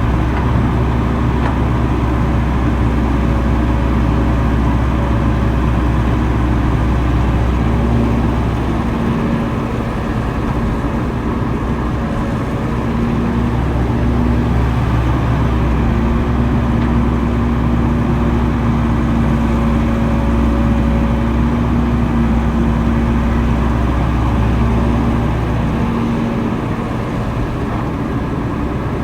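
Diesel engines of heavy earthmoving machinery running steadily, a low rumble with a steady engine tone. The rumble eases off briefly about a third of the way through and again near the end.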